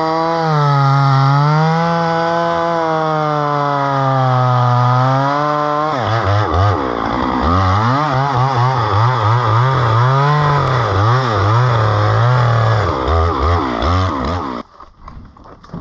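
Two-stroke chainsaw running at high revs while cutting a palm, its pitch drifting slowly at first. From about six seconds in the pitch rises and dips rapidly over and over as the chain loads and frees in the cut. It cuts off suddenly near the end.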